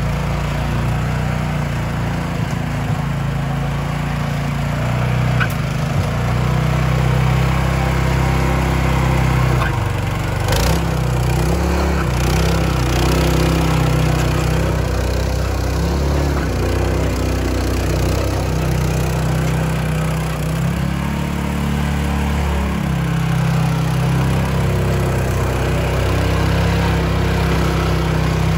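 Patpat (two-wheel tractor) single-cylinder diesel engine running steadily, with a couple of brief clatters about ten seconds in.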